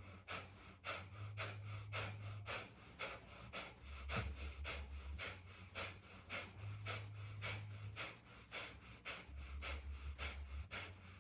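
Kapalabhati (breath of fire) breathing: quick, forceful exhales pumped out through the nose in an even rhythm of about three sharp puffs a second, each inhale passive and unheard. A low electrical hum runs underneath.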